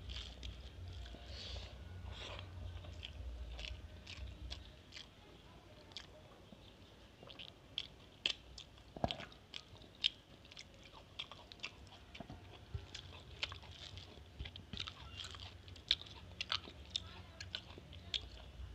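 A person chewing a mouthful of rice and cooked greens close to the microphone: many short, irregular mouth clicks and smacks. A low hum runs underneath for the first few seconds, then stops.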